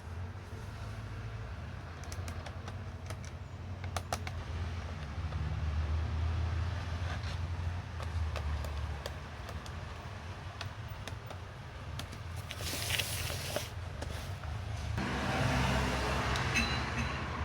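Small clicks and taps of a laptop and hand tools being handled for disassembly, over a steady low background rumble, with a short rustling hiss about thirteen seconds in.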